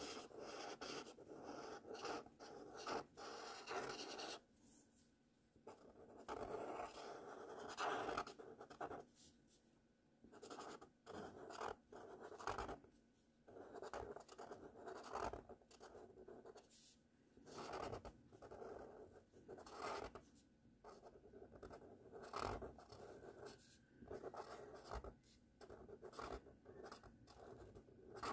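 Felt-tip marker scraping across paper as cursive letters are written, in a string of short strokes with brief pauses where the pen lifts.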